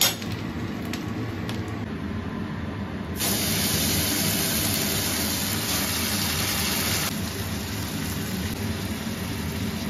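Hot oil sizzling in an aluminium kadai. About three seconds in, the wet boiled taro leaves go into the pan and the sizzle jumps suddenly to a loud hiss, easing back a few seconds later, over a steady low hum.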